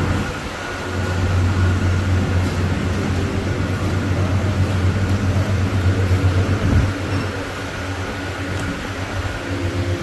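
Steady low mechanical hum with a faint high whine above it.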